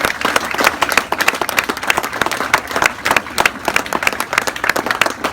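A crowd clapping in applause: many hands clapping at once, dense and irregular, keeping up steadily.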